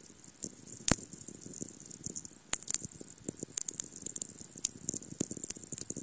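Atmospherics (sferics) from a very-low-frequency radio receiver: irregular crackling clicks and pops over a steady high hiss, the radio signature of distant lightning strikes. One sharper click stands out about a second in.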